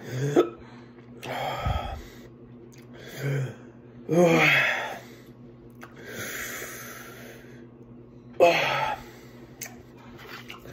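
A man gasping and breathing hard through his mouth from the burning heat of the Paqui One Chip Challenge chip, with short vocal sounds and a long hissing breath about six seconds in.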